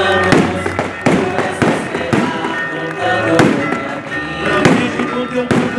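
Aerial fireworks going off overhead in a steady string of sharp bangs and cracks, about two a second, with music playing underneath.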